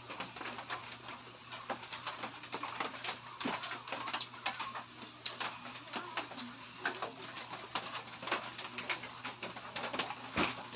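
Close-up mouth sounds of eating noodles by hand: wet lip smacks and chewing clicks, many short ones at an uneven pace.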